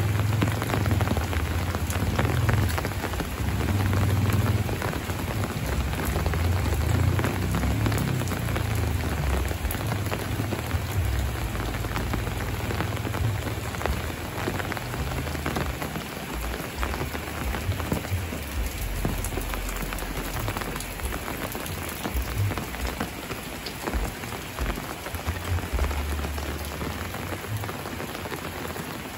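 Steady rain falling on metal roofs and a wet paved lane: an even hiss full of fine drop ticks. A low rumble sits underneath in the first half and eases off about halfway through.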